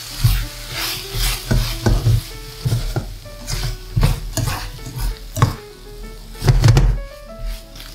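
Pork belly and vegetables stir-frying in a stainless steel pan: a steady sizzle with repeated scraping and tossing strokes as a plastic spatula turns the food against the pan.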